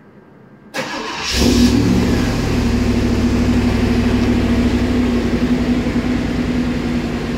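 Pontiac Firebird Trans Am engine started by remote start: a short crank about a second in, a quick rev as it catches, then a steady idle.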